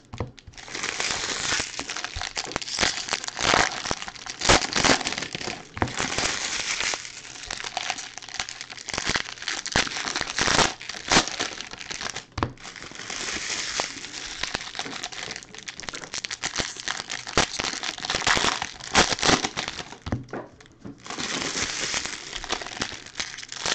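Foil wrappers of 2019 Bowman Jumbo baseball card packs being ripped open and crumpled: an irregular crackling and tearing, with brief lulls about halfway and near the end.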